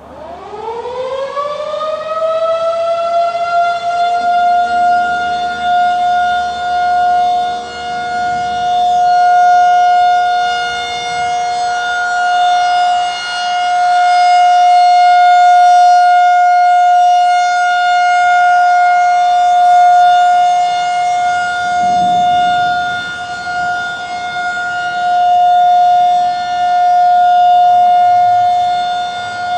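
Federal Signal 2001-SRN electromechanical outdoor warning siren winding up from a low pitch to one steady high tone within the first few seconds, then holding it. Its loudness swells and fades every few seconds as the siren rotates. It is sounding a steady alert for a severe thunderstorm warning.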